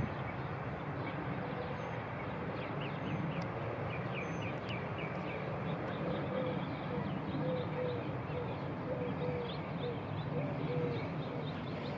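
Outdoor ambience: a steady low background noise with birds calling over it, quick high chirps in short series and, from about halfway through, a run of short, evenly repeated lower notes.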